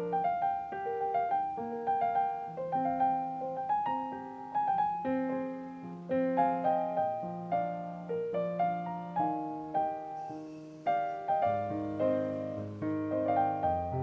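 Background piano music: a gentle melody of single notes over lower accompanying notes, the bass notes coming in stronger near the end.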